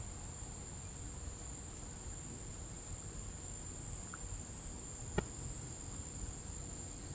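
Night insect chorus: a steady, high-pitched drone throughout, with one sharp click about five seconds in.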